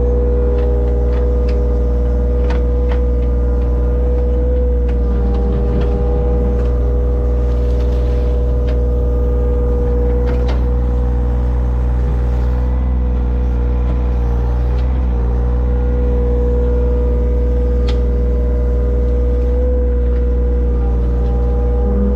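Engine of a digging machine running steadily at high speed, a constant hum, with scattered clicks and knocks from the machine working.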